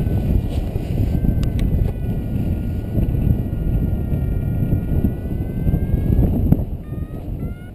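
Wind rushing and buffeting over the microphone of a paraglider's camera during launch and the first seconds of flight. A faint steady high tone runs underneath and turns into short, quick beeps near the end.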